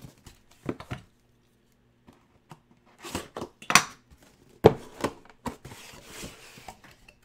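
Cardboard jersey box being opened and handled: a string of knocks, taps and scrapes of cardboard, with the sharpest knock a little over halfway through, followed by fainter rustling.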